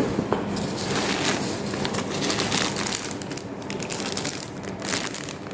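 Plastic packaging crinkling and rustling as it is handled and unwrapped, with a continuous irregular crackle.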